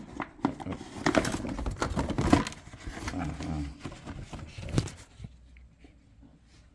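Handling noise from taking the dust cover off a typewriter: rustling with scattered clicks and knocks, loudest about two seconds in, dying away after about five seconds.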